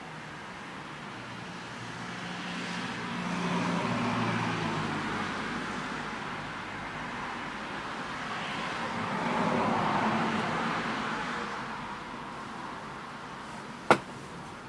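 Two vehicles passing by on the street one after the other, their tyre and engine noise swelling and fading. A single sharp click near the end.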